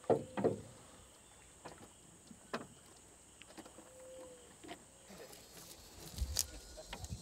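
Scattered light knocks and taps in a small boat over a quiet outdoor background. The two loudest come right at the start, about half a second apart, and a low rumble follows near the end.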